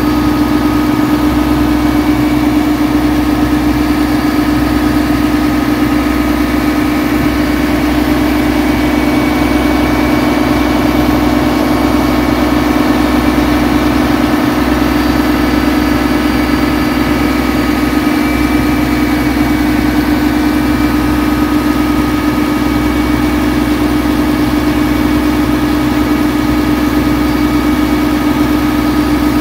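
Engine of a passenger boat running at a steady, unchanging pitch, heard from on board.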